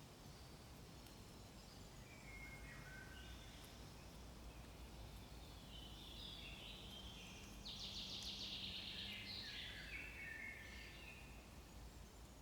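Faint birdsong over a low, steady outdoor background: scattered short chirps, with a rapid trill about eight seconds in.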